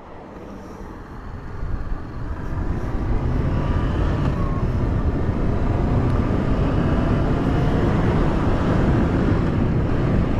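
Wind rush and road noise on a motorcycle rider's microphone, over the engine of a 2013 Honda CB500F parallel-twin ridden at a steady cruising speed. The sound fades in over the first few seconds.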